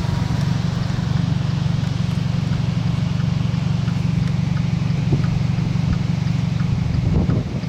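Steady low rumble of a car with its engine running, heard from inside the cabin. Near the end it turns uneven and gusty.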